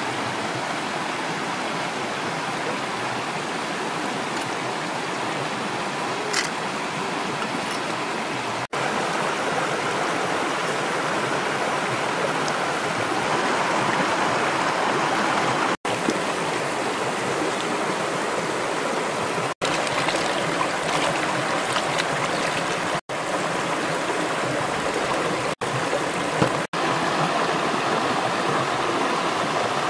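A shallow stream rushing over rocks, a steady wash of water, with a few brief dropouts where the sound cuts out for an instant.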